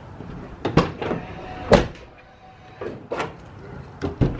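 Sharp mechanical clunks from a Toyota Tacoma's door locks being worked with the key after a new lock cylinder is fitted, about five in all, the last two close together near the end.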